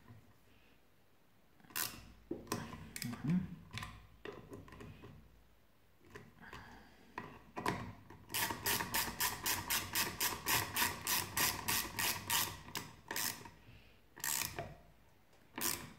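Small hand ratchet clicking rapidly, about six clicks a second for some four seconds from about eight seconds in, as it runs in the small screws of a Derbi Senda water pump cover. Scattered knocks and clinks of the tool on metal come before and after, with two sharp clicks near the end.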